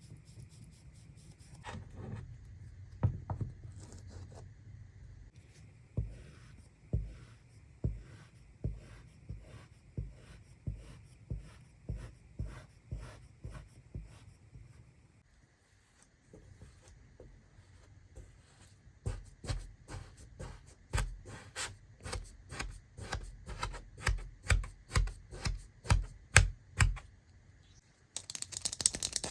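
Kinetic sand being cut, pressed and scraped with a tool: two long runs of soft, regular taps about two a second, with rubbing between them and a short rushing noise near the end.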